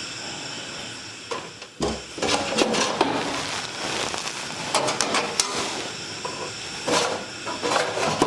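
Hands working on a desktop computer's sheet-metal case while removing screws: a steady hum at first, then, from about two seconds in, repeated sharp clicks, knocks and rattles of the screwdriver, screws and case panel being handled.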